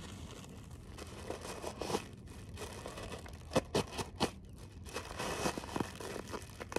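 A stick poking and jabbing at an air-filled plastic packing item, crinkling the plastic, with a cluster of sharp taps around the middle. The jabs only punch small holes in it rather than popping it.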